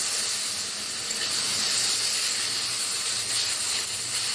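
Jujubes frying in hot oil in an iron kadai, a steady sizzling hiss as they are stirred with a spatula.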